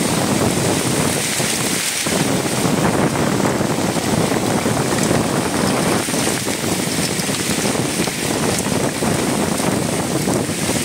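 Steady rushing noise of a storm: wind and heavy rain, with wind buffeting the microphone.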